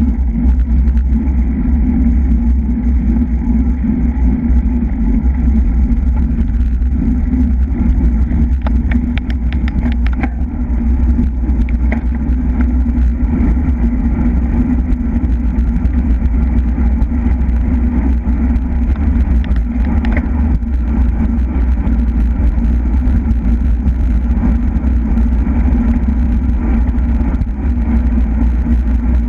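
Steady wind rush buffeting the microphone of a camera riding on a road bicycle at racing speed, with a few faint clicks about ten seconds in.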